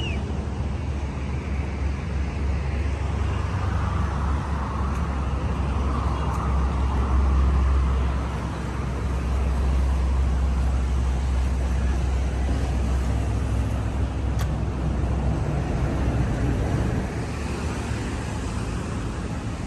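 Motor vehicle engine running with road traffic noise, a steady low rumble that swells and eases a couple of times.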